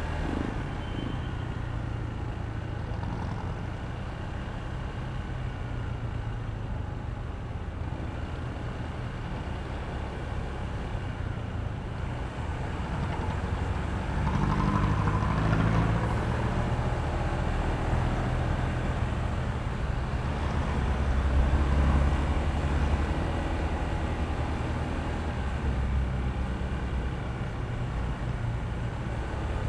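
Honda ADV160 scooter's single-cylinder engine running while riding, with steady road noise. It gets louder about halfway through and again about two-thirds of the way in.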